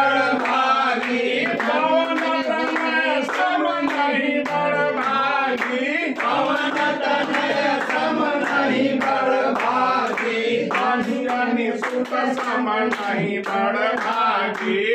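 A group of voices singing a Hindi devotional song, with hands clapping in time.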